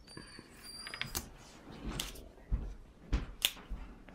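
Handling sounds of game pieces on a board game: a handful of scattered clicks and light knocks, the sharpest about three seconds in, with a brief faint high squeak near the start.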